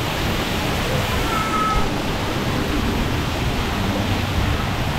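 Steady rushing and splashing of water from the sprays and fountains of a children's water play structure.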